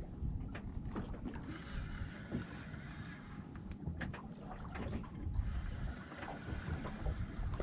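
Wind buffeting the microphone on a small boat at sea, a steady low rumble, with scattered light clicks and knocks.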